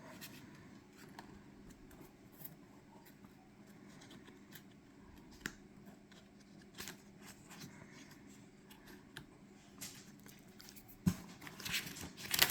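Paper pages of a spread journal being handled and turned: soft rustling with scattered light taps, and a sharper tap about eleven seconds in.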